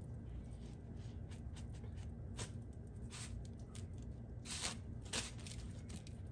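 Chicken drumette being pressed and rolled by hand in crushed Flamin' Hot Cheetos crumbs on a paper plate: faint crunching and rustling of the crumbs, with a few louder crunches between about two and five seconds in.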